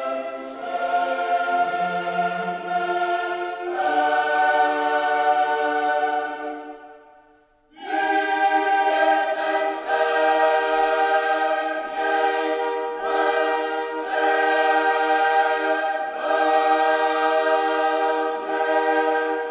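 Background music of sustained, choir-like chords. It fades out about seven seconds in and comes back a second later.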